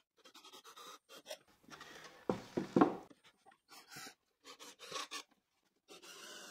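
Cordless drill driving screws into pine boards, in short runs, loudest about two to three seconds in.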